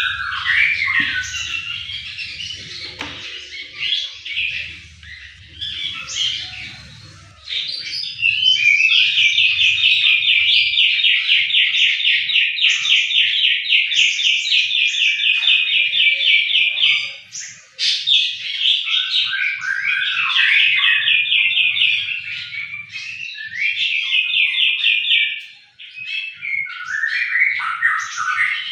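Songbirds chirping and singing, with scattered high chirps and then a long, rapid trill that starts about a third of the way in and lasts several seconds, followed by two shorter trills.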